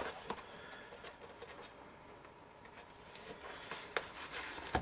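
Faint handling noise of a scored-card plinth being turned over and pressed together by hand: light taps and rustling of card, quieter in the middle and busier near the end.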